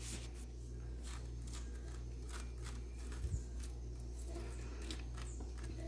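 Handling noise: light scratchy rustles and clicks as a hand brushes the rough skin of whole pineapples, with one low thump about three seconds in, over a steady low hum.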